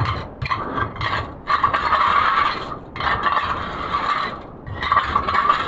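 A hand digging tool scraping through wet gravel and silt, in about six strokes with short pauses between them. The longest stroke is in the middle.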